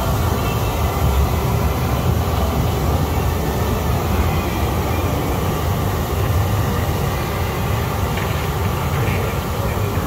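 Whirlpool spa jets churning the water into froth: a steady rushing, bubbling noise with a strong low rumble.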